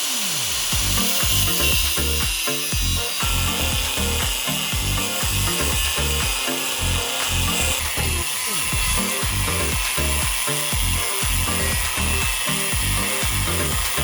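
Steady rasping of a power tool at work, over background music with a steady beat.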